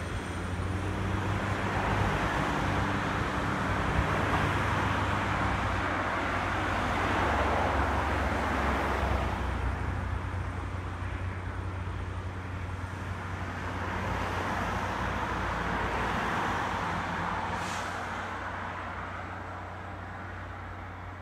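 Diesel engine of a rail track maintenance machine running with a steady low drone as it travels away, fading near the end. Road traffic passes close by, with the noise of cars swelling and falling a few times.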